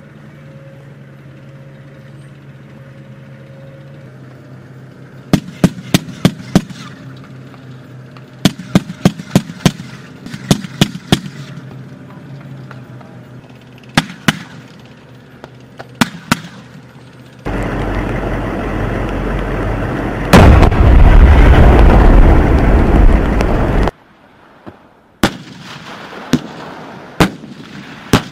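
Gunfire on a military training field: sharp shots in quick groups over a low engine hum, then a loud steady rumble for about six seconds, then a few single shots near the end.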